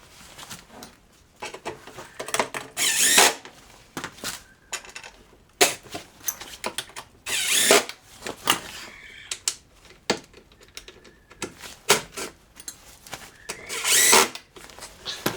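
Cordless drill/driver run in several short bursts of about half a second each, driving fasteners, with clicks of parts and handling noise in between.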